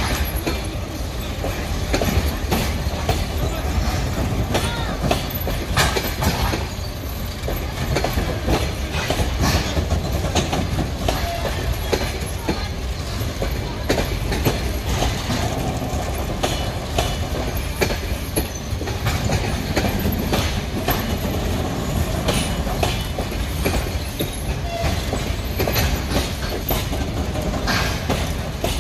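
Passenger coaches of an arriving train rolling past, with a steady rumble and the wheels clattering over rail joints in many short clicks.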